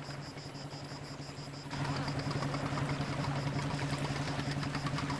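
Small motorboat's engine running steadily as the boat pulls away, growing louder a little under two seconds in.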